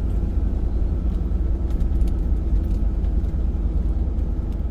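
Ford pickup truck driving, heard from inside the cab: a steady low rumble of engine and road noise.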